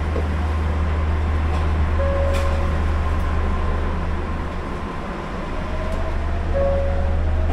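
Steady low hum of an Osaka Monorail train standing at a station, heard inside the driver's cab. Two short beeps come about two seconds and about six and a half seconds in.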